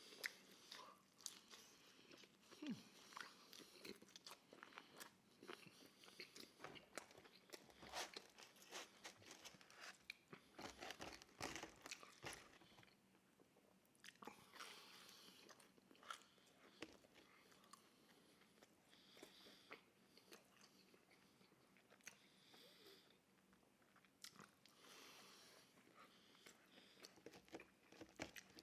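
Soft, close-miked chewing and biting of pepperoni pizza, with irregular crisp bites and wet mouth smacks.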